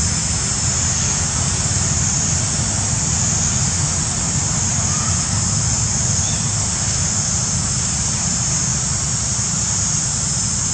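Steady outdoor background noise: an even high hiss over a low rumble, with no sound from the monkey.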